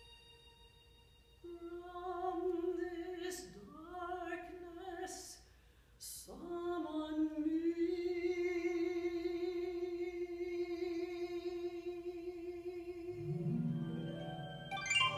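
Soprano voice singing into a microphone in contemporary vocal-electronic music: a sustained note that swoops down in pitch, cut by short hissing consonant sounds, then one long steady held note. Near the end, lower layered electronic tones come in beneath it.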